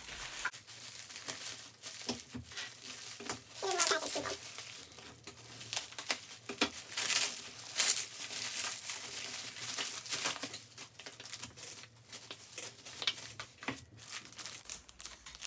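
A mailed package being opened by hand: its wrapping crinkles and tears in irregular bursts of rustling.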